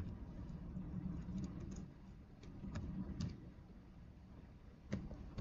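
Computer keyboard keys tapped slowly: a handful of faint separate key clicks with pauses between them.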